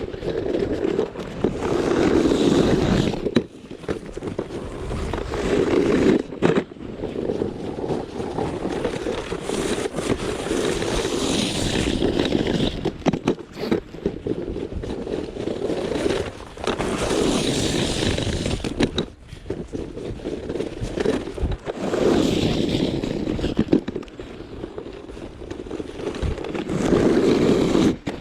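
Snow being scraped across pavement in repeated strokes, a swell about every five seconds.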